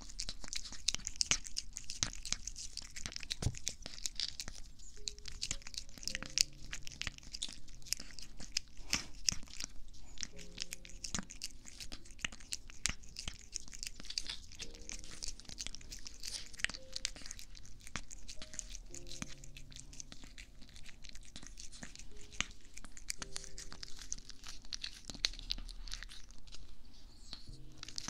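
Cat licking and lapping liquid treat from a squeeze tube held against a binaural microphone: a dense run of quick wet clicks of tongue and mouth, with the plastic tube crinkling.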